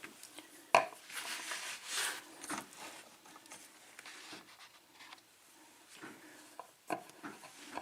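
Small metallic clicks and knocks from a picked-open lock cylinder and lockpicking tools being handled, with faint rustling; one sharp click comes just under a second in and a few more near the end.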